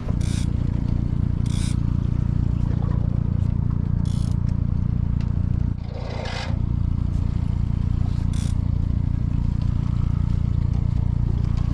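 Steady low rumble of the boat's outboard motor running at trolling speed, with a few short scrapes and clatters of gear or the camera being handled, the loudest about six seconds in.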